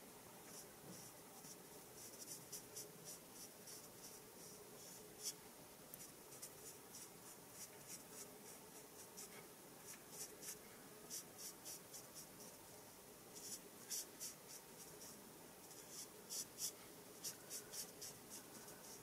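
Faint, quick scratchy strokes of a brush-tip marker on cardstock, coming in irregular clusters as a stamped image is coloured in fine strokes along its edge.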